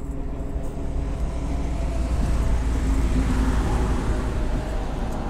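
A road vehicle passing by, its noise swelling to a peak about three seconds in and then fading.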